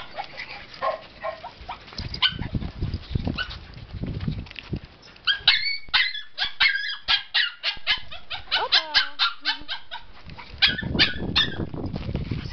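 Dog barking in rapid runs of short, sharp barks, several a second, with a few drawn-out calls bending in pitch between the runs.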